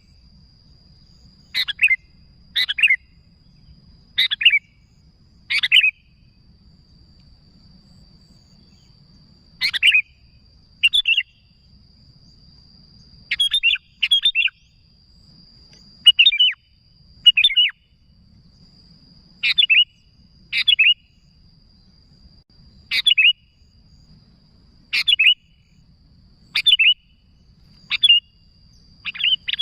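Sooty-headed bulbul (kutilang) giving short, bright calls, often in pairs, one every second or two, with a faint steady high tone behind them.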